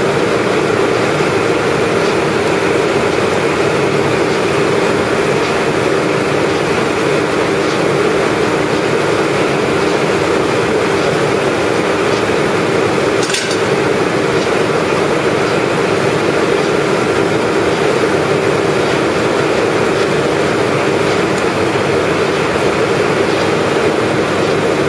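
Ice slurry generating and pumping plant running steadily: a constant loud mechanical drone with a steady hum, and a single sharp knock about halfway through.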